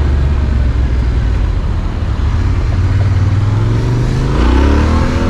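Yamaha Ténéré 700's parallel-twin engine with an Akrapovic exhaust, running under way with a steady low hum over wind and road noise. Near the end the engine note rises as the bike accelerates.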